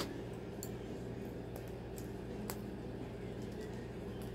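A few sharp clicks as a cockatoo's beak picks at plastic toy chain links, the loudest right at the start and another about two and a half seconds in, over a steady low hum.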